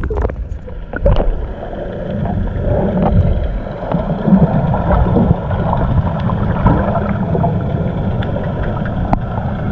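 Muffled, rumbling water noise picked up by a camera held underwater, with a few faint clicks.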